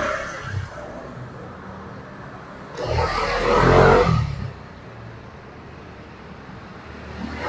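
A motor vehicle passing on the street: its engine and road noise swell up about three seconds in and fade out over a second and a half, over a steady low traffic rumble.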